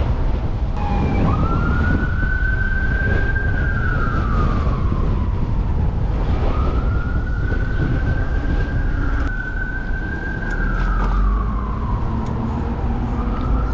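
Emergency vehicle siren wailing, its pitch rising slowly, holding, then falling, about every five or six seconds, over wind rumbling on the microphone.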